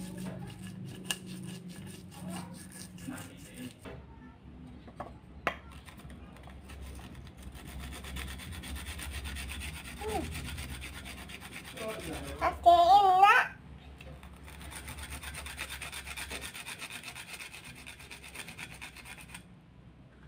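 Shallot being rubbed back and forth on a wooden grater with metal pins, a steady scraping hiss; at the start, hands scrape ground spices in a stone mortar with small clicks. About two-thirds through, a short, loud, high warbling voice cuts in for about a second.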